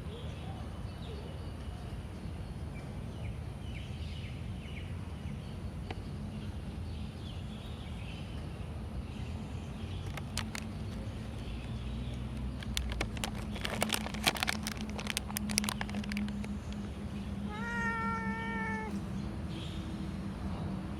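A cat meows once near the end: a single steady meow of about a second. Before it comes a run of sharp clicks and taps, the loudest sounds here.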